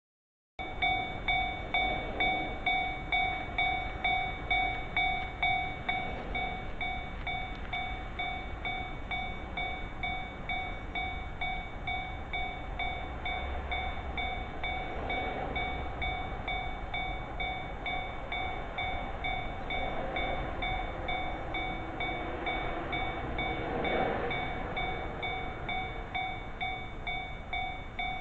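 Japanese railway level-crossing warning bell ringing in an even, repeating clang at about two strikes a second, with a train rumbling past the crossing, loudest near the end.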